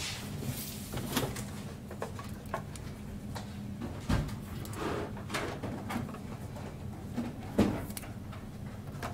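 Trading cards and a sorting tray being handled: scattered clicks, taps and shuffles, with a louder knock about four seconds in and another about seven and a half seconds in, over a steady low hum.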